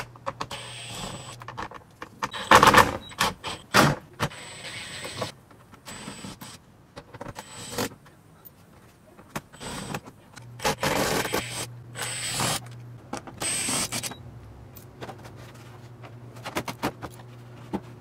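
Hand ratchet with a 7mm socket clicking in short bursts as it backs out bolts, with scattered clinks and rattles of the tool and loosened bolts. A faint steady low hum sits underneath.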